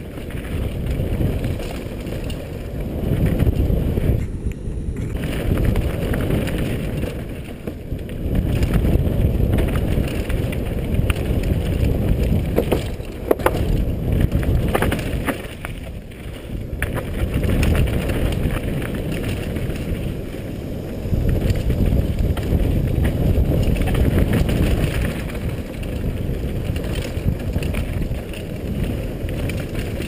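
Wind rush on a helmet-mounted action camera and mountain-bike tyres rumbling over a dirt trail during a fast downhill descent, swelling and easing every few seconds, with a few sharp knocks from the bike over bumps around the middle.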